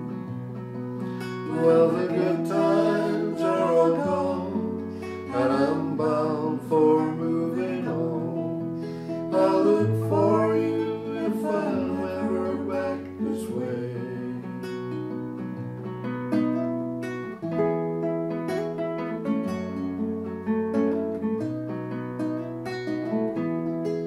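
Nylon-string classical guitar playing the song's closing chords and bass notes, with voices holding sung notes over it for roughly the first half, then the guitar alone to the end.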